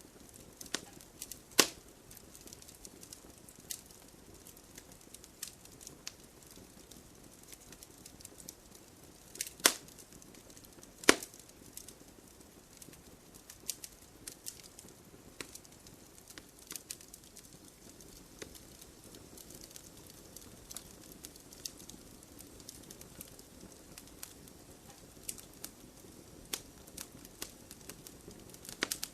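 Firewood burning, crackling with irregular sharp pops over a faint low rush of flame; the loudest pops come about a second and a half in and twice around ten to eleven seconds in.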